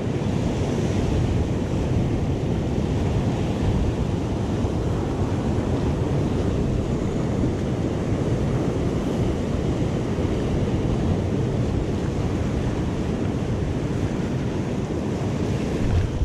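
Surf breaking and washing over rocks in a steady rush, with wind buffeting the microphone.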